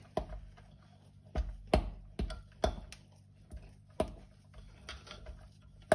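Metal fork clicking and scraping against the inside of a glass jar while stirring rye flour and water into a sourdough starter, in irregular clicks about two a second.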